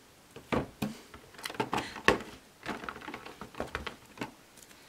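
Boxed card decks being handled and set down on a wooden tabletop: an irregular scatter of light taps and clicks.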